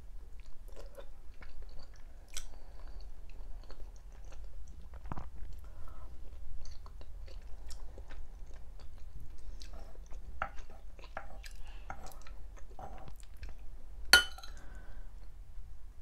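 Close-up chewing of stuffed vine leaves (dolma), with small wet mouth clicks throughout. About 14 seconds in comes one sharp, louder click as the metal spoon knocks against the wooden board while cutting into another stuffed leaf.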